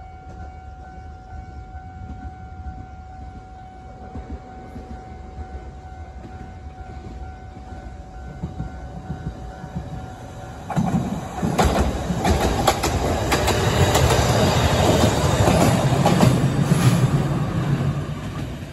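Fukui Railway Fukubu Line train passing close by, its wheels clattering over the rail joints; the noise builds about eleven seconds in and fades near the end.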